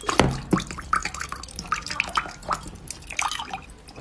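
Wet mouth sounds against a dome of frozen coloured ice, with melt water dripping and trickling from it into a glass mug below: a stream of short, irregular wet clicks.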